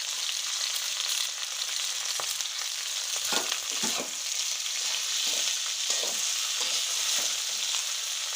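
Vegetables sizzling in hot oil in a karai, stir-fried, with a steady hiss and repeated short scrapes of the stirring utensil against the pan.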